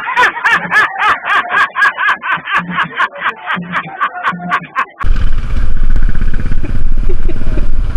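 Tinny music with a quick beat of about four strokes a second, cutting off abruptly after about five seconds to loud wind rumble on the microphone of a moving vehicle.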